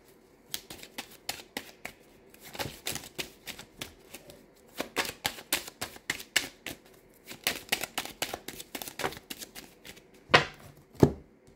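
Tarot cards being shuffled by hand: an irregular run of quick, crisp card clicks and flicks, with two heavier thumps near the end.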